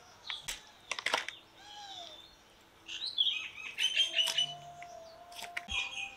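Birds chirping in short calls, with a few sharp clicks and knocks as a whole raw chicken is handled and cut on a bonti blade.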